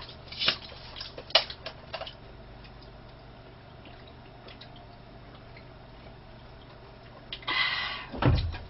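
Close-up eating and drinking sounds from a person: a few wet mouth clicks while chewing in the first two seconds, then a quiet stretch, then a short breathy burst near the end.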